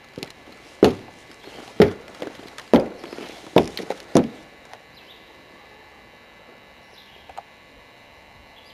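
Footsteps on wooden deck steps: five heavy treads about a second apart in the first half, then only faint background.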